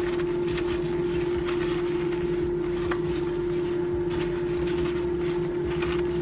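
Kitchen paper rustling and crinkling as cut raw potato strips are patted dry in a ceramic dish, over a loud, steady electric hum with one clear tone.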